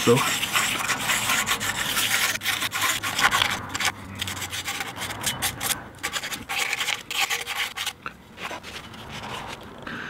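Fine abrasive paper rubbed by hand in quick strokes over the metal inner seating ring of an old FIAMM air horn, cleaning the surface the diaphragm plate seals against. The scratching thins out and gets fainter in the second half.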